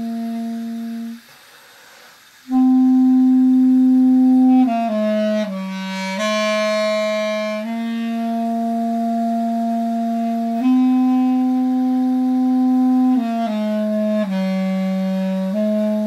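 Duduk playing a slow melody of long held notes, with a breath pause just over a second in and a few quicker stepwise note changes further on.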